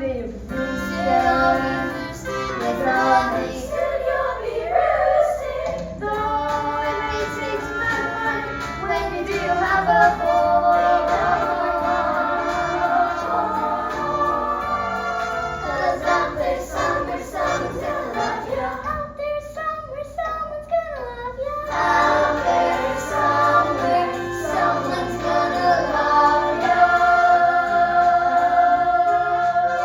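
A group of voices singing together in chorus with musical accompaniment, including long held notes.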